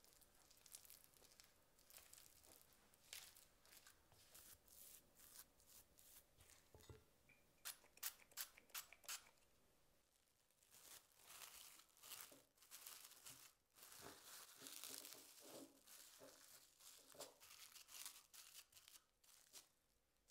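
Faint scraping and clicks of a silicone spatula mixing mashed sweet potato and starch in a ceramic bowl, with a few sharp clicks shortly before halfway. Then plastic cling film crinkles and tears as it is pulled off and pressed into a small ceramic ramekin.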